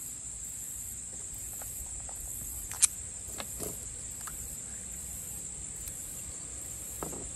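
Light clicks and taps of a screwdriver and small metal carburetor parts being handled as the carburetor's top cap is unscrewed and lifted off, with one sharp click about three seconds in. A steady high insect trill runs underneath.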